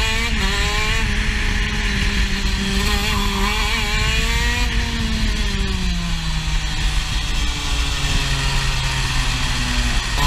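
Racing kart's two-stroke engine heard onboard at speed, holding high revs at first, then the revs falling about halfway through as the kart slows into a corner, and running low near the end.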